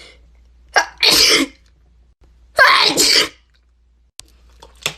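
A person sneezing twice, about a second and a half apart, each sneeze a short, loud, explosive burst. The sneezes are induced by tickling the inside of the nose with a cotton swab.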